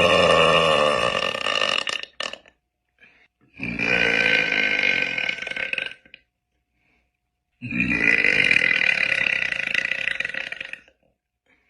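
A woman burping: three long, drawn-out burps of two to three seconds each, with short silent gaps between them.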